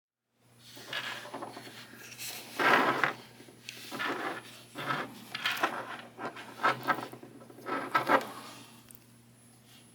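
Plastic figure pieces being handled and fitted together: a series of rubbing, scraping and knocking sounds, in irregular bursts that die away about a second before the end.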